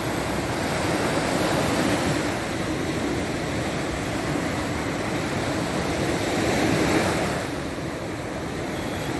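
Sea waves breaking and washing up the beach. The wash swells about a second in and again near the seven-second mark, then eases off.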